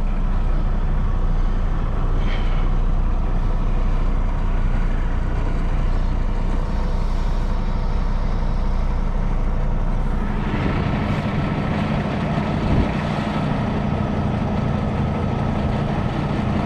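Diesel engine of a Kenworth T680 semi truck running low and steady in the cab while the rig is backed slowly into a parking spot. About ten seconds in it gets louder and fuller, as with more throttle.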